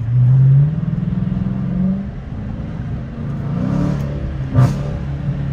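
Dodge Challenger R/T's 5.7-litre Hemi V8 accelerating hard at freeway speed, heard from inside the cabin. The engine and exhaust note starts loud and rises in pitch over about two seconds, then eases off and swells again briefly, with a single sharp click about four and a half seconds in.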